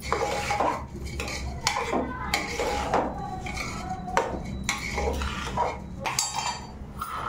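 Steel spoon stirring a thick mix of rice, lentils and vegetables in an aluminium pressure cooker, scraping and clinking irregularly against the pot's sides and base.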